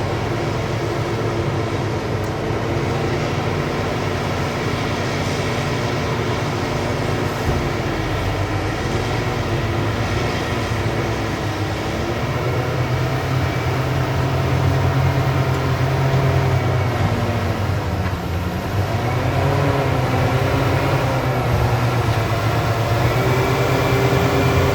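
Large mining excavator's diesel engine and hydraulics working, the engine note rising and falling with the load; it grows louder about halfway through.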